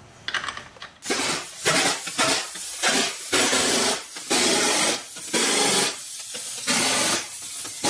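Impact wrench running wheel lug nuts down onto a rear wheel, in a string of short bursts of about a second each with brief pauses between, starting about a second in.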